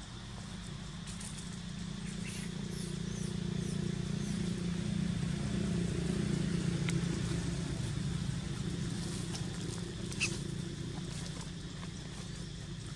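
A low, steady engine hum that grows louder toward the middle and fades again, with a few faint, short, high chirps over it.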